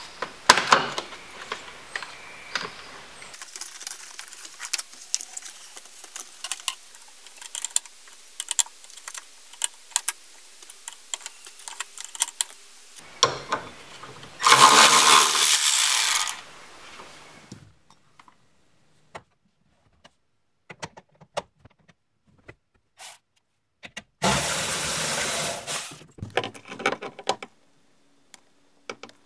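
Plastic trim clicking and rattling as it is worked off a car's door pillar, then a cordless electric ratchet runs in two bursts of about two seconds each, backing out seat belt mounting bolts, with a few light clicks between them.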